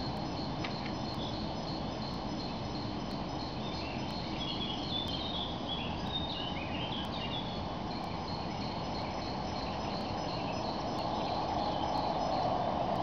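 Insects chirping in an even, repeating rhythm, with a few short bird calls about four to seven seconds in, over a steady low background noise.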